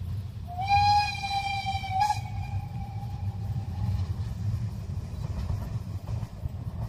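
Steam whistle of the narrow-gauge steam locomotive 53Mh: one steady blast of about a second and a half that rises slightly at its start, then trails off faintly by about four seconds in. A steady low rumble runs underneath.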